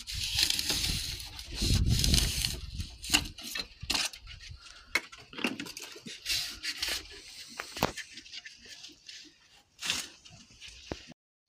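Cured polyurethane expanding foam being cut and scraped off wooden coop boards with a blade: rough scraping and tearing, densest in the first three seconds, then scattered sharp clicks and short rasps.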